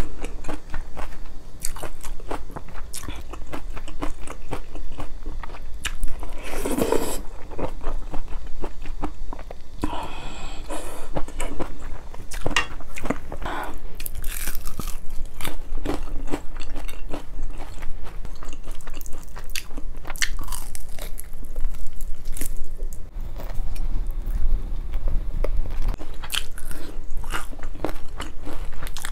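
Close-miked eating: steady chewing and biting with crisp crunches, from spicy malatang and Kyochon Honey Combo honey-glazed fried chicken.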